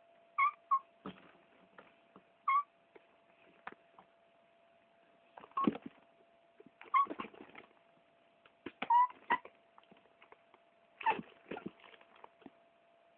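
Domestic cat giving short chirping meows, several times, among scattered clicks and rustles. A faint steady hum runs underneath.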